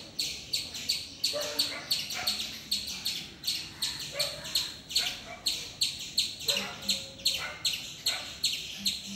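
Indian palm squirrel giving its alarm call: an unbroken series of short, high-pitched chirps, about three a second, the scolding a squirrel keeps up at a cat nearby.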